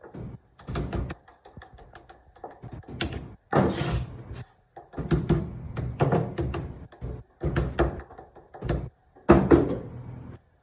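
Irregular mechanical clicks, knocks and short scrapes of hard parts being handled, coming in quick clusters throughout.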